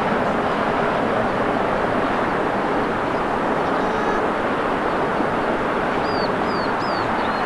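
Steady, even jet-engine noise from an airliner at the airport, with no rise or fall. A few short bird chirps near the end.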